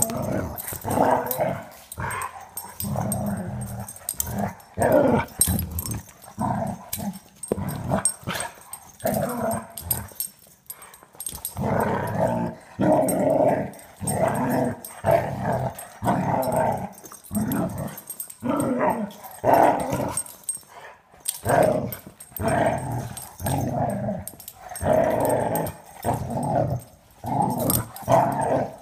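Two dogs, an English pointer and an Italian greyhound puppy, play-fighting with growls and the odd bark in many short bursts, one after another.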